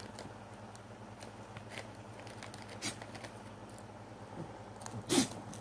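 A dog crunching dry biscuit pieces: scattered small crackly crunches, the loudest a little after five seconds in.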